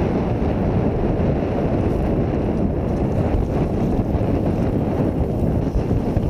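Wind buffeting the microphone on a small sailboat under way, a steady low rumble, with water rushing past the hull.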